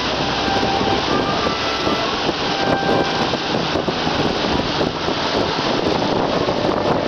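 Steady rushing noise from a moving river tour catamaran: its engines running and the wake churning behind it.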